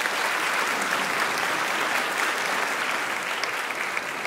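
An audience applauding: dense, steady clapping.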